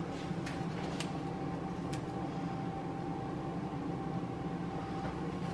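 Steady hum of a running fan or appliance with a faint steady whine in it, and a few soft ticks in the first two seconds.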